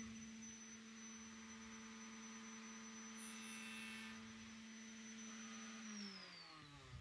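Table-mounted router with a carbide stile-and-rail bit running at full speed with a steady whine, making a short test cut into a board edge around three to four seconds in. It is switched off about six seconds in and winds down, falling in pitch.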